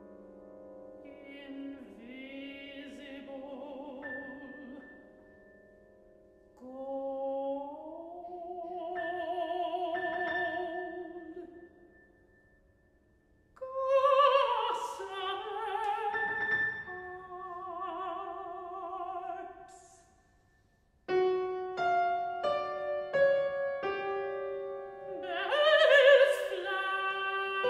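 Countertenor singing a slow classical vocal line with wide vibrato over grand piano accompaniment. The phrases are broken by short pauses, and about three quarters of the way through the piano strikes a run of chords before the voice comes back in.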